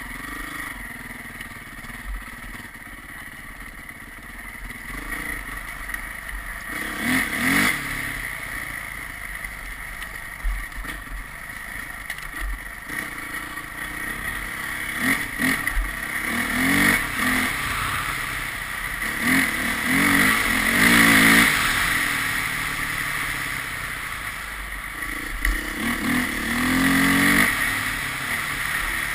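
Engine of a moving vehicle revving up and easing off several times, loudest about two-thirds of the way through, over a steady rushing noise.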